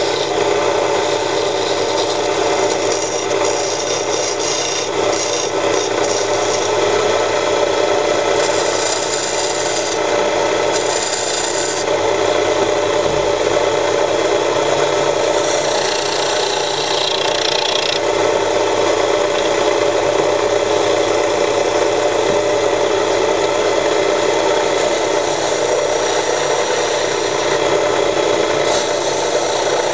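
Homemade belt-driven wood lathe running while a hand-held chisel cuts the spinning wooden blank: a steady scraping of the tool on wood, its hiss coming and going every few seconds as the cut bites and eases.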